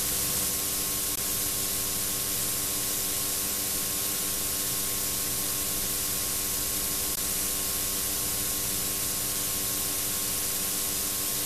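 Steady hiss of an old VHS tape's noise floor, with a faint steady hum underneath; no tool sound is heard.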